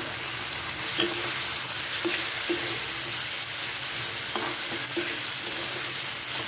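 Pointed gourd and potato pieces sizzling in spiced masala in a metal kadai while a metal spatula stirs them, with a steady sizzle and several sharp scrapes and knocks of the spatula against the pan, the loudest about a second in.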